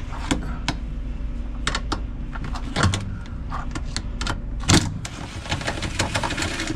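Metal clicks and clanks of hand tools taking fasteners off a washing machine's underside, with two louder knocks and a quick run of ratchet-like ticking near the end.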